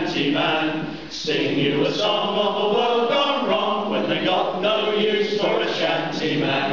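Several men's voices singing a sea shanty together.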